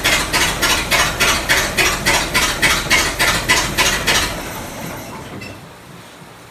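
Freshly rebuilt 1924 Ford Model T four-cylinder flathead engine running on its first start, with a rhythmic metallic clatter about four times a second. About four seconds in the engine sound dies away over about a second.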